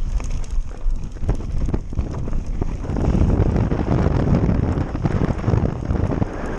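Nukeproof mountain bike rolling fast down a gravel track: knobbly tyres crunching over loose stones, with clatter and knocks from the bike and wind noise on the microphone, getting louder about three seconds in.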